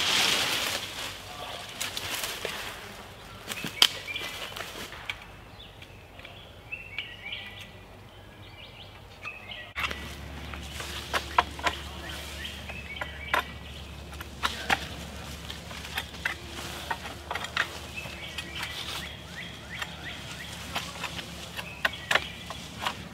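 Birds chirping in woodland for the first several seconds. Then a run of sharp, irregular knocks as a blade chops through a sapling near its base.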